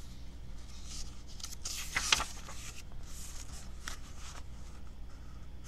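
Paperback picture-book page being turned by hand: paper rustling and scraping, with one sharp crisp snap of the page about two seconds in.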